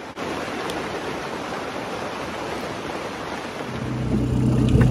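Steady rain falling, an even hiss. About three and a half seconds in it gives way to a boat's outboard motor running with a steady low hum.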